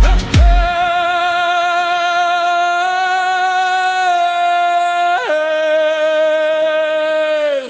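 Cinematic Viking hip-hop track: two deep drum hits, then one long wordless sung note with vibrato held for about five seconds. It steps down to a lower note and slides off at the end.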